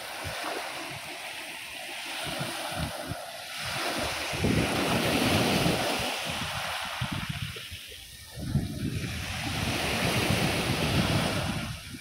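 Small sea waves breaking and washing up a dark pebble beach. The surf swells twice, about four seconds in and again after about eight and a half seconds, over wind buffeting the microphone.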